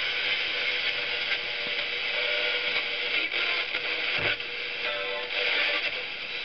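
FM radio playing music through the small speaker of a Hello Kitty tea-cup clock radio, with a steady hiss over it. A short low knock comes about four seconds in.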